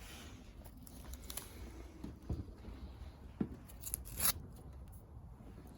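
Plastic wrapping being peeled off a firework cake by hand: quiet, scattered rustles and small clicks, with a few sharper ticks in the second half, the loudest a little after four seconds in.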